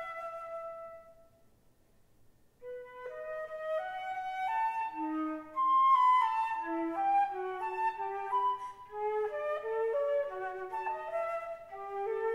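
Solo concert flute playing unaccompanied. A held note fades out about a second in, and after a short pause a new phrase of separate, moving notes begins.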